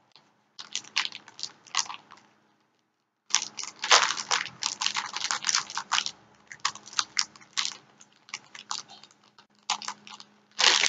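Crinkling and crackling of a Funko Mystery Mini blind box's packaging being torn open and handled. It comes in two spells of quick crackles, a short one, then after a second's break a longer, denser one.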